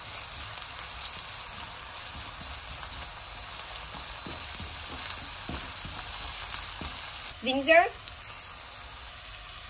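Chopped onion, garlic and a bay leaf sizzling steadily in hot oil in a nonstick pan, with a spatula stirring and scraping through it.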